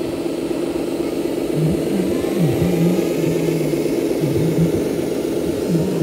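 1/14-scale RC tipper trucks driving past, their motor drive running with a steady hum and a lower whine that rises and falls as the throttle changes.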